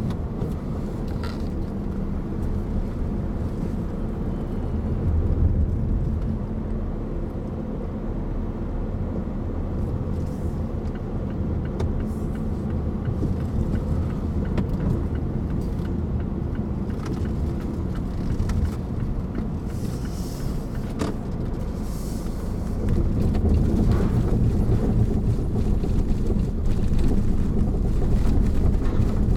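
A car's engine and tyre rumble heard from inside the cabin as it drives along. The rumble grows louder about 23 seconds in, as the car rolls onto the ferry's steel loading ramp.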